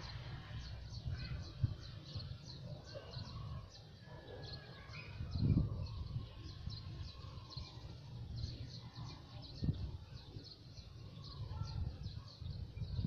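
Rural outdoor ambience: short, high chirps repeating about three times a second, over a low rumble with a few dull thumps, the loudest about five seconds in.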